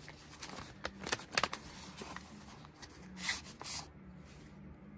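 Paper envelope being handled and carefully opened by hand: soft rustling and scraping of paper with scattered light clicks, a few louder rustles about a second and a half in and again past three seconds.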